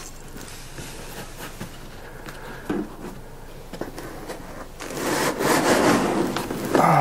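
Unpacking noises as a 3D printer's base panel is worked out of its foam packing insert: light knocks and scrapes, then from about five seconds in a louder rubbing and scraping of the panel against the foam.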